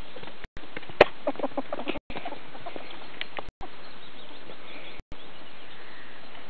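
Ferrets dooking, the soft clucking chuckle they make when excited at play. A sharp click about a second in is followed by a quick run of clucks, over a steady hiss. The sound cuts out for an instant every second or two.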